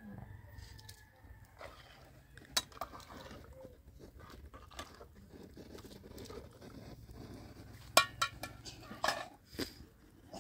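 Metal ladle stirring in a metal cooking pot, with scattered clinks and knocks of metal kitchenware. A quick run of sharp clinks about eight seconds in is the loudest.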